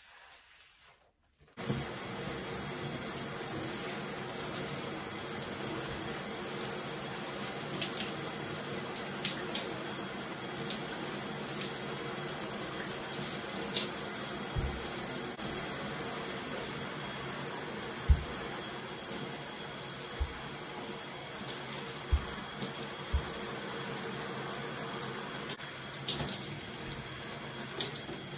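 Shower spray running steadily onto hair and tiled wall as shampoo lather is rinsed out, switching on about a second and a half in. A few short low thumps stand out over the spray.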